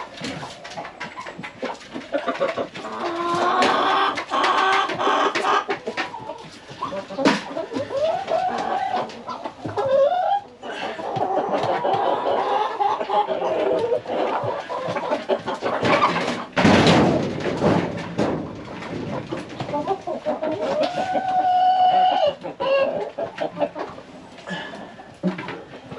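Chickens clucking and calling, many short calls that bend up and down in pitch, with a brief loud noisy burst about two-thirds of the way through.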